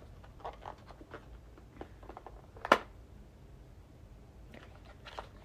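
Faint handling of a cosmetics package, light scrapes and taps, with one sharp click nearly three seconds in.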